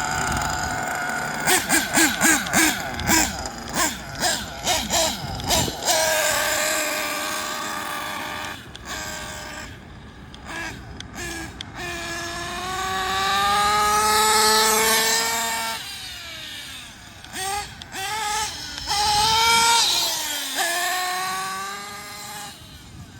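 Small nitro engine of a Kyosho Inferno NEO ST 3.0 RC car, first idling, then blipped in a quick series of short revs, then run at high revs with the pitch climbing and falling away, twice, as the car is driven.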